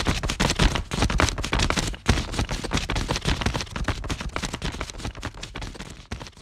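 Sound-effect clatter of many small mechanical walker footsteps: a dense, irregular run of clicks and knocks, many a second, that fades away toward the end.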